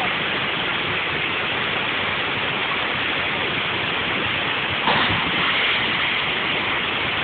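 Steady rushing water, an even hiss with no pauses, swelling briefly about five seconds in.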